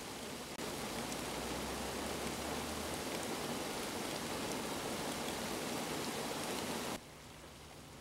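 Steady hiss of falling rain, with a brief dropout about half a second in; it cuts off sharply near the end.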